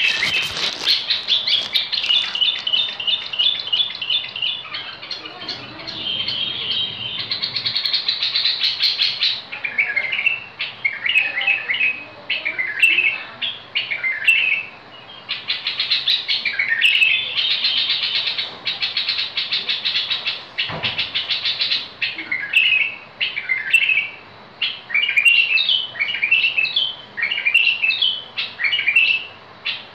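Caged bulbul singing: quick warbling phrases, one after another with short gaps between them.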